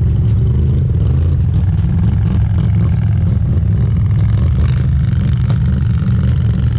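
ATV engine running while the quad rides over a rutted mud trail, with a heavy, steady low rumble and a few short clatters on top.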